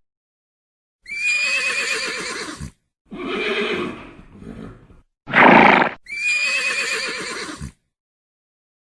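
Horse whinnying: the same wavering, high whinny is heard twice, with shorter, lower horse calls and a brief loud burst between them.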